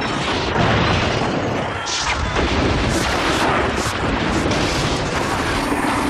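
Cartoon battle sound effects: a continuous din of booms and explosions with repeated sharp impacts.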